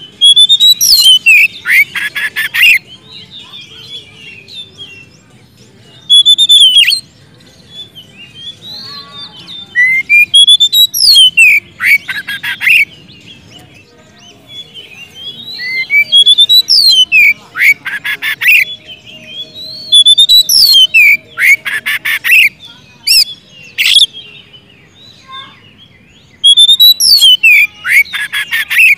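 Oriental magpie-robin in full, loud song. About seven phrases come a few seconds apart, each of clear rising and falling whistles breaking into a rapid, harsh rattling chatter.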